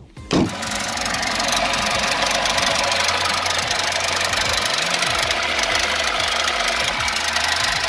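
VAZ-2106 four-cylinder engine starting up about half a second in, then running with a fast, steady clatter. It is a knock from under the valve cover that the owner suspects is the timing chain.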